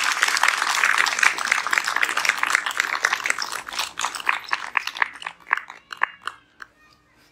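Audience applauding after a speech: dense clapping that thins to a few scattered claps and dies away about six seconds in.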